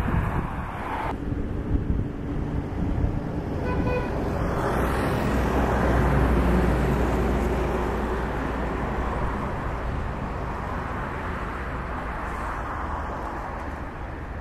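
Street traffic with vehicles passing close by. A short horn toot comes about four seconds in, and a vehicle's rumble swells and fades over the following seconds.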